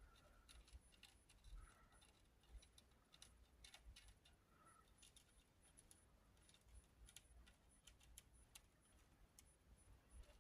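Near silence: room tone with a faint low hum and scattered faint, irregular clicks.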